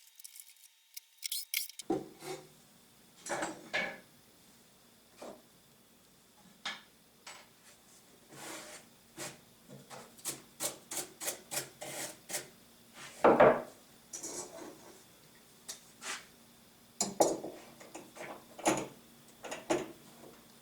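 Scattered knocks, taps and scrapes of wooden workpieces being handled and set down, the loudest knock about two-thirds of the way through.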